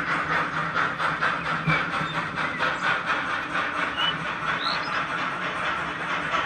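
HO scale model steam train running past: a steady rhythmic clatter under a continuous hiss, with a low steady hum beneath.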